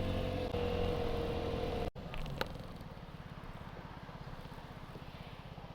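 Vespa scooter's single-cylinder engine running steadily under way, then, after a sudden break about two seconds in, running slower and quieter with a rapid low pulsing.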